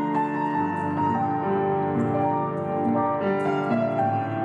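Slow, gentle piano music of held notes that change about once or twice a second.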